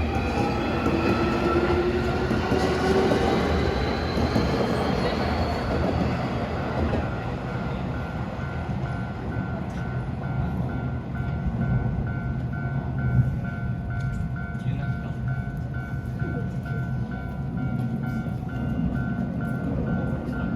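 Keio Inokashira Line electric train running past with a steady rumble, its motors giving a whine that rises in pitch as it picks up speed. Behind it, a level-crossing bell rings in a steady repeating beat.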